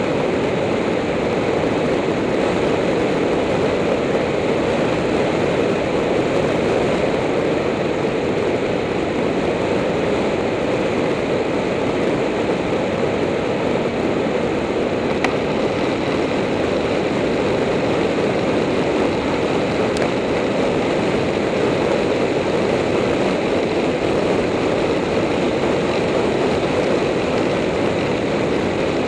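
Steady rush of wind over the microphone of a camera mounted on a road bike's handlebars, descending at speed.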